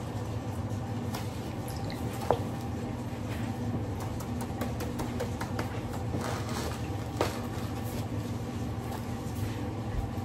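Spatula scraping and packing fresh snow into a plastic measuring cup and leveling it off, with soft crunching scrapes and two sharper taps of the spatula against the cup, about two seconds in and again near seven seconds.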